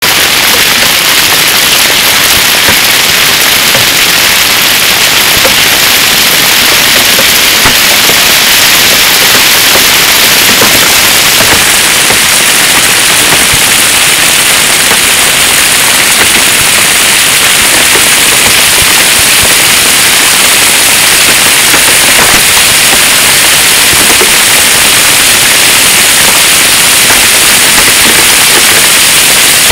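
Hailstorm: hailstones pelting down on the ground and grass in a loud, dense, steady clatter of small impacts.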